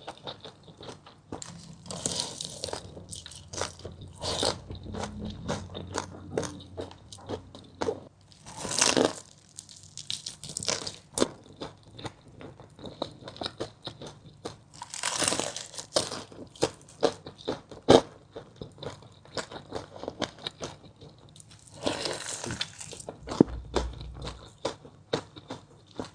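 Close-up eating of crispy fried chicken legs: a steady run of sharp crackling crunches from chewing the crisp skin, with louder, longer crunching bites about five times.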